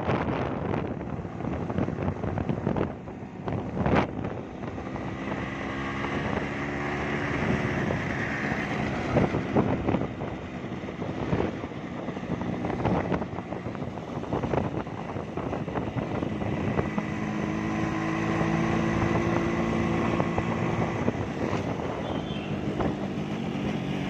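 A small motorcycle engine running, its pitch wavering and rising slightly now and then, with scattered knocks and clatters over it.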